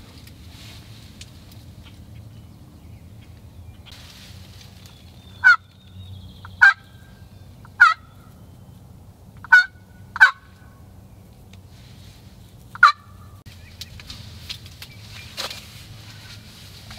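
Wild turkey tom gobbling six times at uneven intervals: short, loud, falling rattles over a faint steady background.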